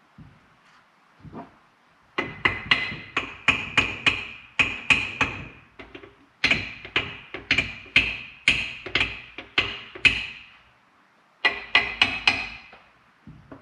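Repeated hammer blows on metal, about three a second in three runs with short pauses between, each strike ringing briefly, as the Can-Am Maverick 1000 engine is knocked apart during teardown.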